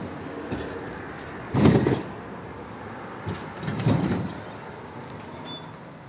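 Floor-scrubbing machine being moved, with two heavy rumbling clunks about two seconds apart over a steady background noise.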